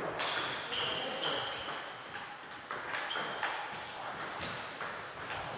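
Table tennis ball clicking off bats and the table in a rally, irregular sharp ticks, with more ball knocks from neighbouring tables in the same hall.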